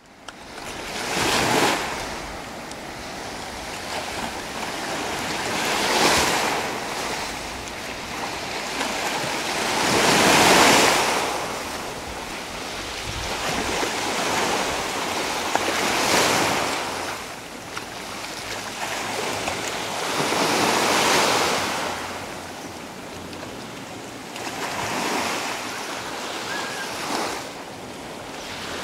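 Sea waves washing onto the shore in surges about every four to five seconds, over a steady rush of wind.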